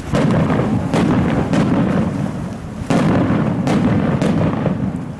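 Aerial fireworks shells bursting: two loud booms, at the start and about three seconds in, each followed by a rumbling echo and several sharper bangs.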